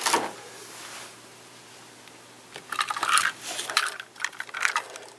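Plastic toy packaging crinkling and crackling in irregular bursts as it is handled. There is a brief rustle at the start, a quiet pause, then steadier crackling from about halfway.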